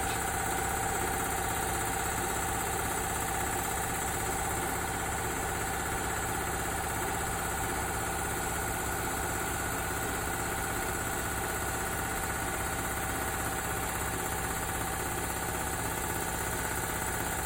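A 5–7.5 hp electrically driven industrial air compressor running steadily under power, fitted with a heavy-duty air intake filter silencer. It gives an even, unchanging machine hum with a few steady tones.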